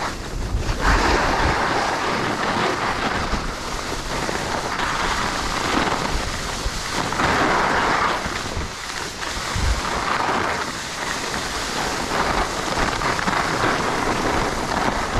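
Skis scraping and hissing over snow on a downhill run, the hiss swelling and fading every couple of seconds, with wind buffeting the microphone.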